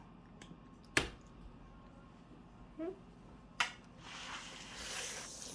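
Quiet room with two sharp clicks or taps, a brief murmur in between, and a soft rustling hiss near the end.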